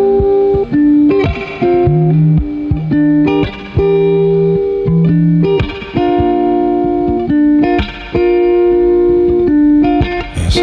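Band music without vocals: a guitar picking notes and chords in a steady changing progression over low bass notes, with a sharp hit near the end.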